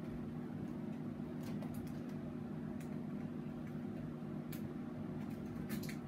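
Steady low room hum with a few faint clicks and ticks from hands working the wires and old switch at a metal wall box.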